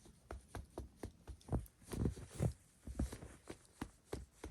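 Snow crunching: a run of irregular soft crunches and thuds, about two or three a second.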